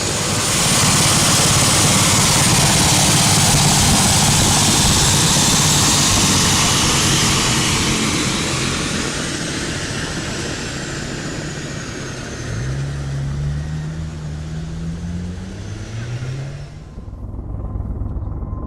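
Helicopter in flight, loud rotor and turbine noise that fades gradually after the first half, with a low engine tone rising twice towards the end. Near the end the noise cuts off suddenly, leaving a low rumble.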